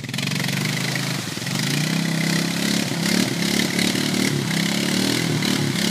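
Honda Rancher 420 ATV's single-cylinder engine running under load in a mud hole. It revs up about a second and a half in and then rises and falls, over the noise of churning mud and water.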